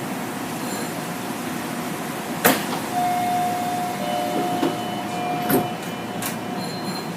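Sliding passenger doors of a Kita-Osaka Kyuko 8000-series train closing: a sharp click about two and a half seconds in, then a steady door-warning tone lasting nearly three seconds while the doors slide shut, with two knocks as they close. A steady hum from the stationary car runs underneath.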